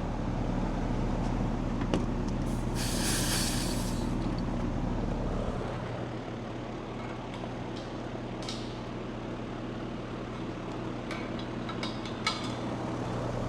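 Air-conditioning system running with a steady hum, and a short hiss of refrigerant about two and a half seconds in as a gauge hose is released from a service port. A few small metallic clicks near the end.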